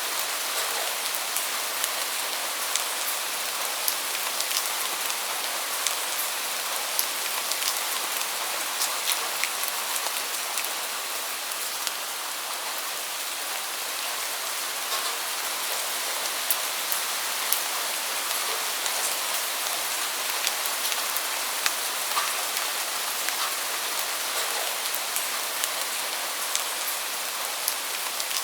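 Steady rain falling: an even hiss dotted throughout with the sharp ticks of single drops.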